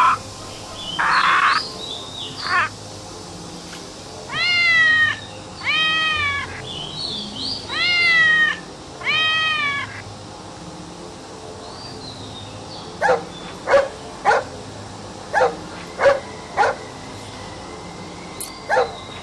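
A string of recorded animal sounds. A crow caws a few harsh times at the start, then a cat meows about five times, each meow long and rising then falling in pitch. In the second half a dog barks in a run of short, sharp barks.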